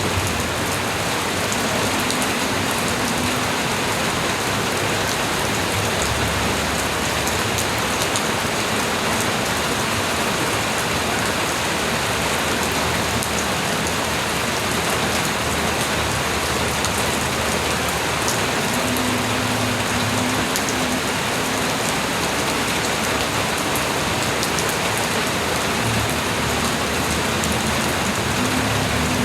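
Light rain falling steadily, an even patter of drops on surfaces with scattered fine drip ticks.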